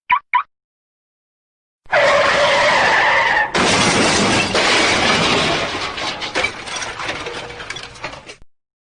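Sound effect of a car crash: a tyre screech for about a second and a half, then a long crash of breaking and shattering glass and debris that rattles on and fades out. Two short chirps come just before it at the very start.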